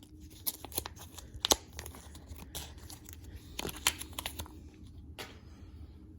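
Packaging being handled and opened around a coin: crinkling and tearing with a string of sharp clicks and snaps, the loudest about a second and a half in and again near four seconds, then it stops shortly before the end.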